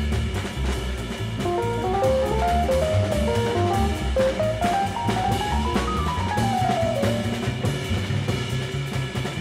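Jazz band playing at up-tempo: upright bass notes and a drum kit under fast runs of notes that climb and fall in quick steps, played on an electric piano.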